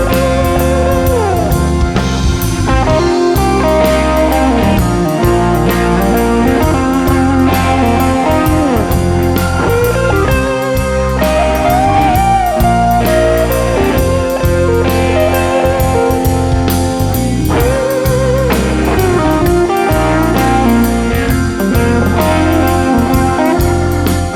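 Blues-rock band playing an instrumental break: an electric lead guitar solos with bent, wavering notes over bass, drums and rhythm guitar.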